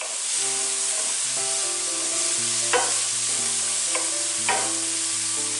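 Chopped onion and leeks sizzling gently in oil and butter in a stainless steel frying pan over medium-low heat, being stirred with a wooden spoon. The spoon knocks against the pan twice, about halfway through and again a little later.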